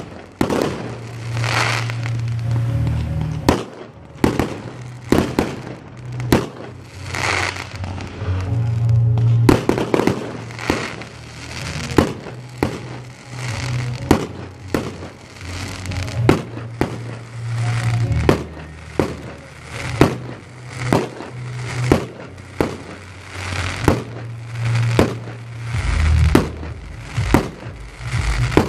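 Aerial fireworks display: shells burst one after another in a steady string of sharp bangs, about one every second, some followed by crackling.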